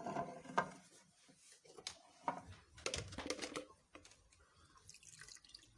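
Scattered light clinks and knocks of kitchen utensils, a sieve and a container, while blended lemon and orange juice is strained, with a small cluster of taps about three seconds in.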